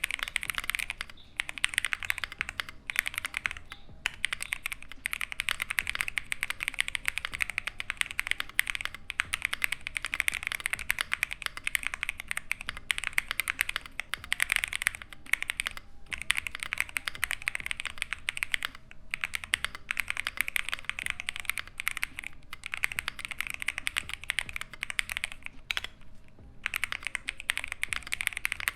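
Continuous typing on an Akko YU01 mechanical keyboard, its tray-mounted polycarbonate plate and Akko Piano Pro switches in a resin case: a fast, steady run of keystrokes with a few short pauses. The keystrokes sound snappy, pitched between clacky and thocky, with no pinging.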